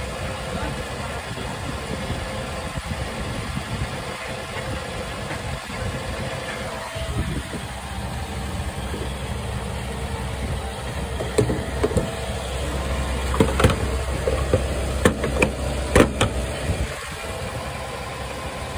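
Diesel fuel pump at a filling station running with a steady hum while diesel is topped off into a camper van's tank through the nozzle, a little at a time. A run of sharp clicks comes about two-thirds of the way in.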